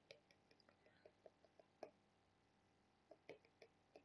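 Near silence with faint, irregular light ticks of a stylus tapping on a tablet screen while drawing short dashes.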